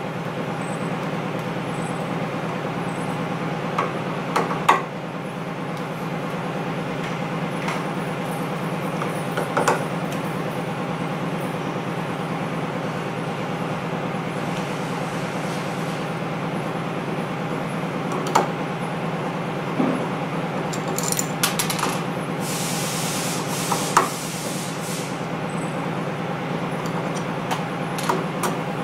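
Small metal-on-metal clicks and taps from a Torx driver and screwdriver working screws out of the aluminium bar on a Braillo embosser's magnet rack, a dozen or so scattered through, over a steady low hum. A short hiss comes a little past the middle.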